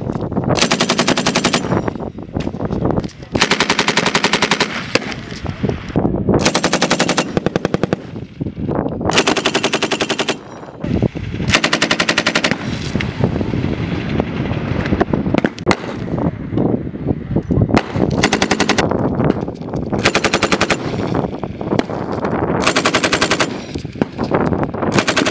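Belt-fed M240 medium machine guns firing repeated automatic bursts, each a rapid, even string of shots lasting a second or two. There are about nine bursts, with short gaps where the report echoes away.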